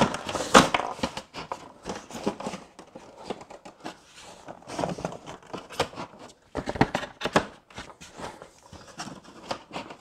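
Floor sections of an inflatable boat being handled and fitted into its hull: irregular knocks and clatter of the panels, with the rustle and crinkle of the boat's fabric as the hull is pressed and pulled.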